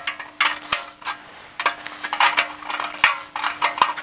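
Tongue-and-groove pliers wrenching a cut tab of a Jaguar XK150 door's sheet steel back and forth against a spot weld that holds: an irregular run of metallic clicks, creaks and scrapes. A faint steady hum runs underneath.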